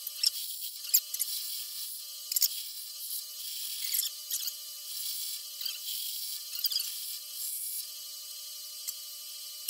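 Bench grinder running with a steady whine while old bolts are held against its spinning wheel to clean them. Each contact gives a short hissing scrub, with a few sharp clicks among them.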